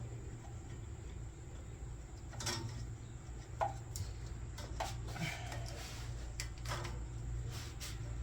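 Metal wrenches and hand tools clinking and knocking, about half a dozen separate clanks over a steady low hum.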